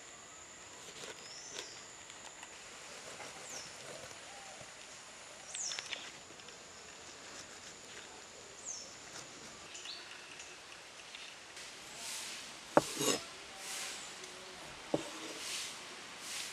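Knife cutting by hand: in the second half, a series of short scraping strokes and two sharp knocks of the blade on the cutting surface, the loudest sounds. Underneath, outdoor ambience with a steady high whine and several short falling chirps in the first half.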